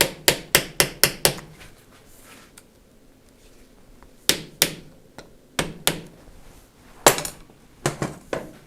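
Hammer taps on a part of a starter motor held in a vise, knocking it loose: a quick run of about six taps, then pairs of taps with short pauses, the loudest tap about seven seconds in.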